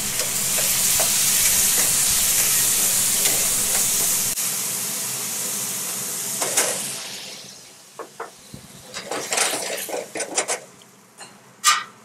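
Tomato sauce sizzling loudly in a hot frying pan with sautéed onion, garlic and cherry tomatoes. The hiss dies away after about seven seconds. Then a spatula scrapes and clicks against the pan as the sauce is stirred.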